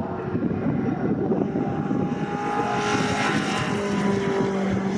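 Racing pickup trucks' engines running at speed on the circuit, with a loud pass-by peaking about three seconds in, then a steady engine note holding toward the end.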